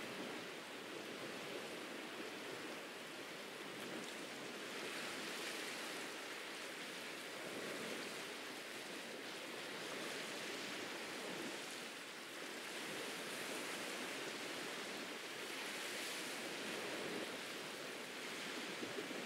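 Ocean surf washing onto a beach, a continuous hiss of breaking water that swells and eases every few seconds as waves come in.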